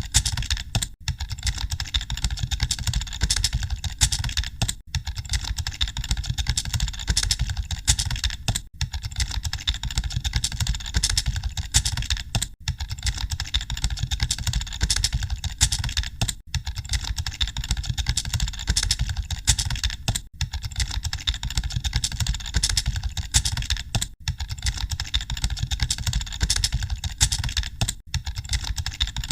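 Fast, continuous typing on computer keyboards: a dense clatter of keystrokes with a brief break about every four seconds.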